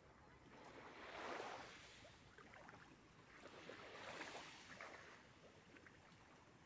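Faint small waves lapping at the shoreline, a soft wash that swells and fades every few seconds with a light crackle as each one breaks.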